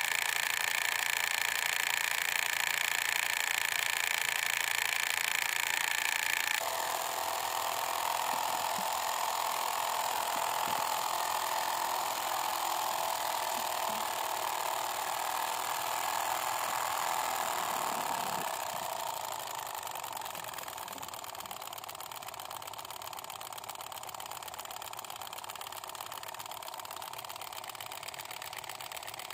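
Small motor of a miniature diesel water-pump model running steadily with a whirring hum. It changes pitch suddenly about seven seconds in and runs a little quieter from about nineteen seconds on.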